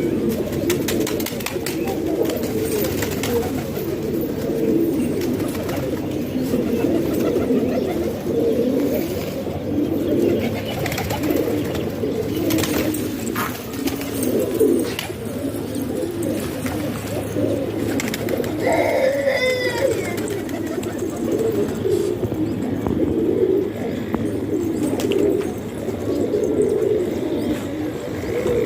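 Many domestic pigeons cooing at once, their low coos overlapping in a continuous layer, with one brief higher-pitched call about two-thirds of the way through.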